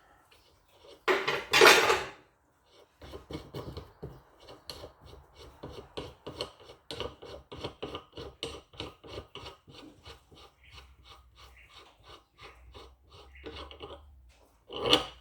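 A loud metal clatter about a second in, then a long run of quick rasping clicks, about four or five a second, that fades near the end: metal press fittings (washers, threaded rod, bearing cup) being worked and taken apart by hand.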